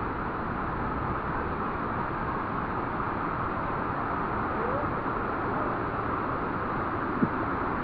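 Saiyok Noi waterfall: water rushing steadily over the falls, with one short knock about seven seconds in.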